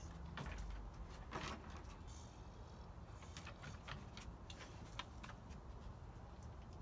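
Irregular faint clicks and taps, about a dozen, from dogs moving about in wire kennel pens on a wooden deck, over a faint low hum.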